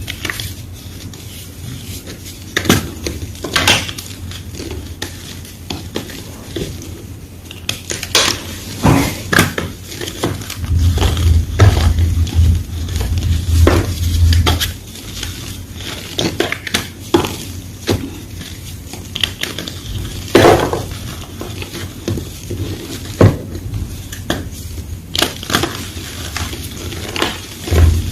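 Blocks of white gym chalk being crunched and crushed in a long, irregular series of sharp crackles and brittle cracks.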